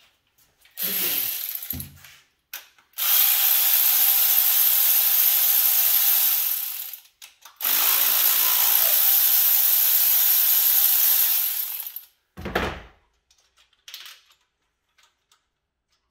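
A ratchet running out the rocker-arm bolts on a V6 engine's valve train: two long runs of rapid ratcheting, about four seconds each, after a short burst near the start. A short dull thud follows.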